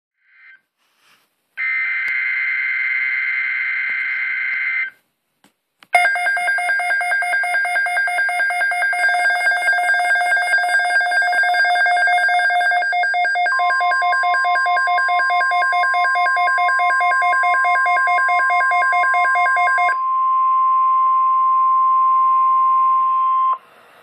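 NOAA Weather Radio receiver sounding an EAS alert. First comes a burst of buzzy two-tone SAME digital header data. Then the receiver's own loud pulsing alert alarm sounds, and the steady warning alarm tone of the broadcast starts under it midway and continues alone after the alarm stops, cutting off shortly before the end.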